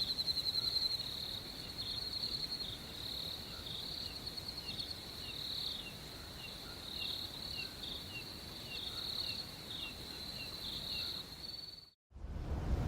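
Crickets chirping in fast, pulsing high trills that repeat in short phrases, with fainter short falling chirps underneath. About 12 seconds in they cut off suddenly and a steady low rumbling noise begins.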